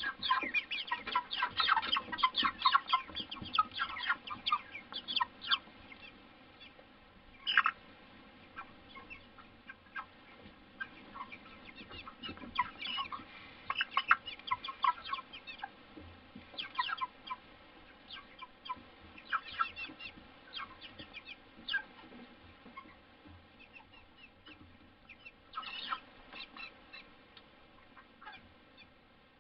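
A flock of white meat chickens clucking and peeping in short, rapid calls. The calls come thick and fast for the first several seconds, then only now and then, with one louder call about seven and a half seconds in.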